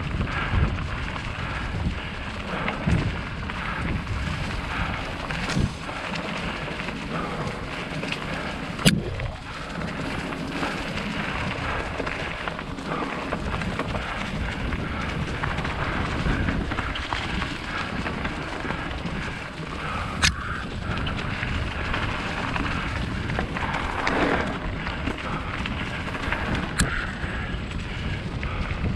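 Steady rumble of wind buffeting the microphone and tyres rolling over a dirt trail during a mountain bike ride, with three sharp clicks or knocks from the bike spread through it.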